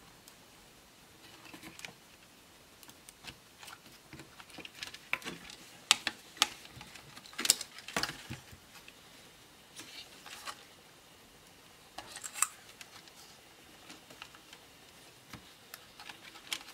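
Scattered light clicks and taps as a laptop's plastic parts and small cable connectors are handled during disassembly, a few sharper clicks standing out now and then.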